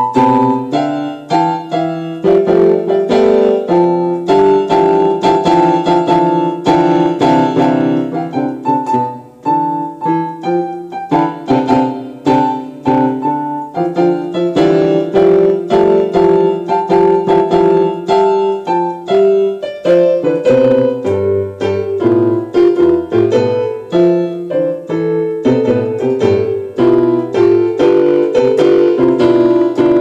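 Piano music: a melody of struck notes over lower bass notes.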